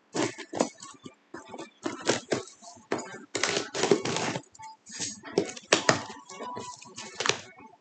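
Cardboard shipping box being slit open along its packing tape with a small box cutter, then its flaps pulled open: an irregular run of scrapes, rips and cardboard rustling.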